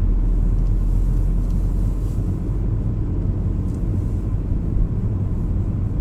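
Car cabin noise while driving: a steady low rumble of engine and tyres on a snow-covered road.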